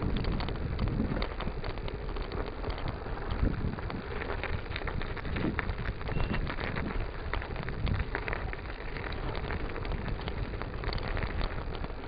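Bicycle tyres crunching and crackling steadily through snow, with a dense patter of small clicks and rattles over the rough track and a low rumble underneath.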